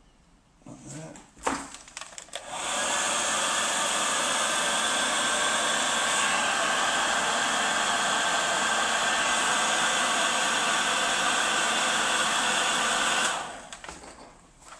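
Electric heat gun blowing hot air to shrink heat-shrink sleeving onto a cable end: a steady rushing fan noise with a faint whine, switched on about two and a half seconds in and cut off about a second before the end. A few light handling knocks come before it starts.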